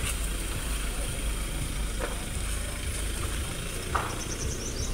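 Mahindra Scorpio SUV's diesel engine running as the vehicle moves off at low speed, with two light clicks about two and four seconds in.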